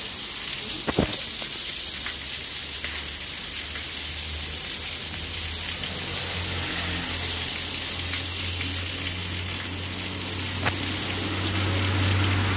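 Heavy rain pouring onto a wet road and pavement: a steady hiss, with a low rumble underneath that grows a little louder near the end and a single sharp knock about a second in.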